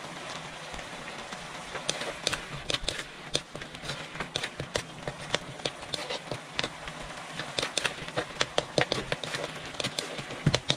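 Metal ladle stirring a simmering curry in a wok: irregular clinks and scrapes of metal on the pan from about two seconds in, over a steady hiss from the hot, steaming sauce.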